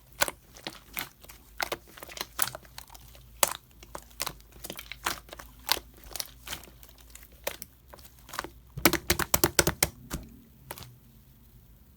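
Slime mixed into cake clay being kneaded and squeezed by hand, making irregular sharp crackling clicks. A quick flurry of clicks comes about nine seconds in, then the sound dies down just before the end.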